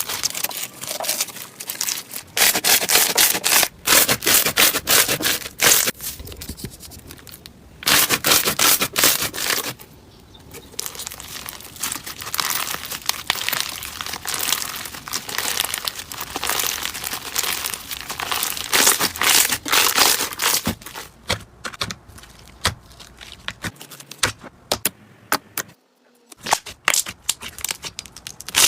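Slime being squeezed and poked by hand, making dense crackling and crunching clicks in loud stretches with quieter pauses between.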